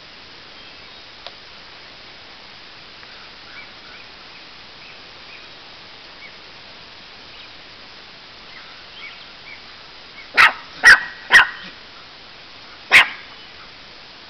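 Livestock guardian puppy barking: three short, high barks about half a second apart, then one more about a second and a half later, after several faint little squeaky cries.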